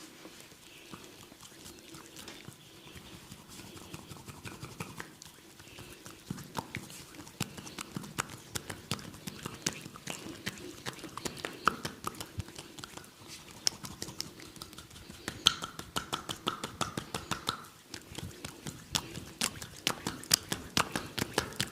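A barber's hands massaging oiled neck and shoulder skin: wet rubbing and slapping clicks that grow louder and more frequent, turning into quick rhythmic tapping toward the end.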